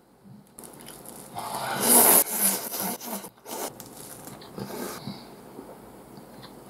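Ramen noodles being slurped: one long, loud slurp about a second and a half in, then shorter slurps and chewing.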